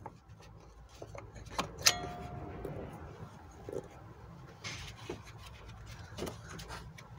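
Distributor cap being worked loose and pulled off a Volvo B230F engine's distributor: scattered clicks and rubbing of plastic and glove, with one sharp click that rings briefly about two seconds in, and a short scrape near the end.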